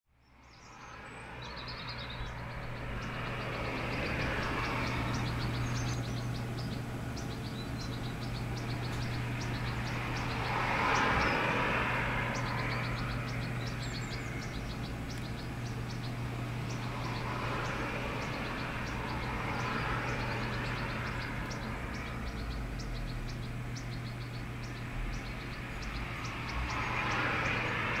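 Fledgling European goldfinch giving short, high chirps again and again, over a steady low hum and a background rushing noise that swells and fades about four times.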